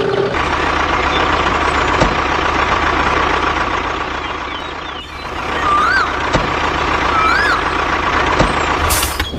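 Steady vehicle-engine running noise with a faint high whine through it, and two short rising-and-falling chirps in the second half.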